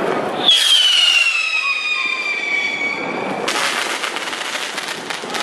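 Buscapé ground-chaser firework going off: a loud whistle starts about half a second in and slides slowly down in pitch for about three seconds, then breaks into a crackling hiss.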